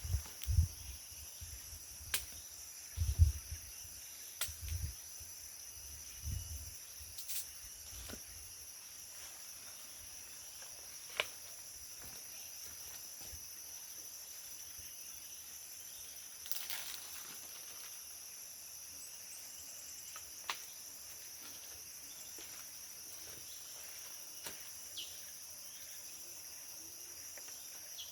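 Steady, high-pitched drone of tropical forest insects. Low thumps sound in the first eight seconds or so, with a few sharp clicks later on.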